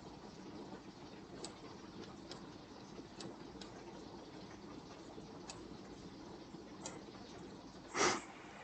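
Faint, scattered light clicks of small metal carburetor parts and tools being handled during reassembly, with one louder knock about eight seconds in.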